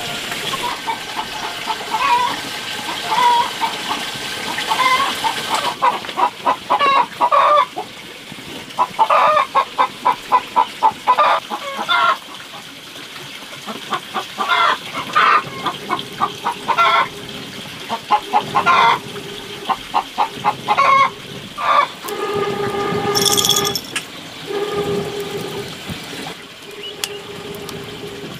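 Chickens clucking in short runs of rapid clucks, repeated every second or two, giving way to longer drawn-out calls near the end.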